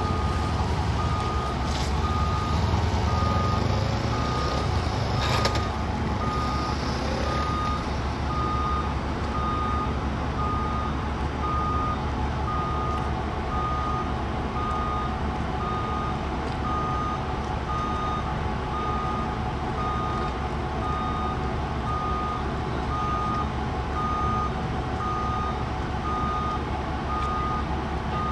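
Electronic warning beeper giving a steady beep about once a second over a constant low machinery drone, such as heard around a ferry's vehicle deck and ramp while it prepares to sail.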